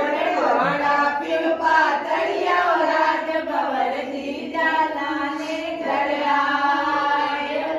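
A group of women singing a song together in unison, without any instrument or beat.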